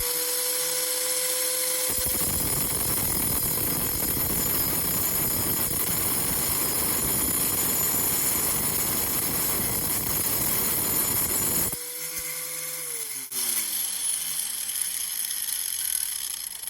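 Angle grinder cutting into a quartz geode: the motor's steady whine, then about two seconds in the blade bites into the rock with a loud grinding rasp that lasts about ten seconds. The blade is then lifted to spin free again, and near the end the motor is switched off and its whine falls as it winds down.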